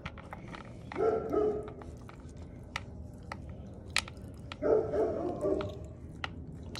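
A Rottweiler puppy chewing raw meat from a bowl, with a string of sharp clicks and crunches. A dog barks in two short runs, about a second in and again near five seconds, louder than the chewing.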